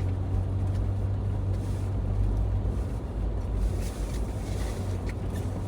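Toyota Land Cruiser driving on packed-snow roads, heard from inside the cabin: a steady low engine and road rumble, with a few faint ticks.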